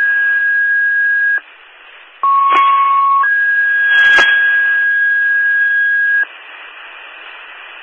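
Fire dispatch paging tones over a scanner radio. A steady high tone cuts off about a second and a half in. After a short stretch of radio hiss, a lower tone sounds for about a second and steps straight up to the high tone, which holds for about three seconds with a brief click partway through. Open-channel hiss follows. The tones alert fire companies ahead of a second-alarm dispatch.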